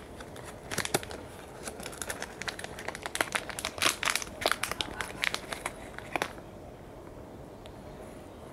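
Newspaper draped over a wire cage trap crinkling and rustling as the trap is handled and set down: a run of quick crackles lasting about five seconds, then stopping.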